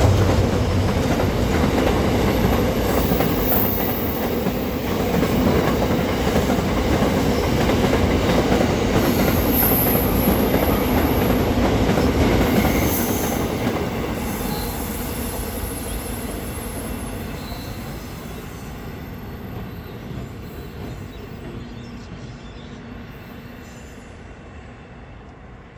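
Diesel-locomotive-hauled train, locomotives 42107 and 4836, passing on the line with clickety-clack and high wheel squeal. It is loud for the first half, then fades steadily as it runs away.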